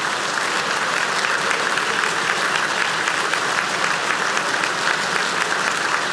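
A large crowd applauding: dense, steady clapping from many hands that holds an even level throughout.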